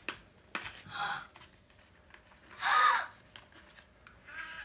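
A child's sharp, excited gasp about two and a half seconds in, with a smaller breathy sound about a second in. Light clicks and rustling come from paper gift packaging being handled.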